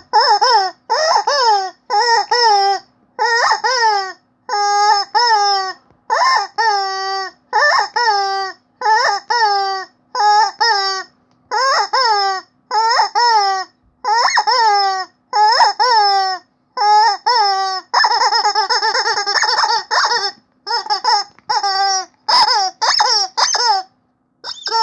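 Rubber chicken squeaky toy squeezed over and over, each squeeze a short squeaky honk that drops in pitch, often in quick pairs. About eighteen seconds in, one squeeze is held into a longer buzzy squeal lasting about two seconds.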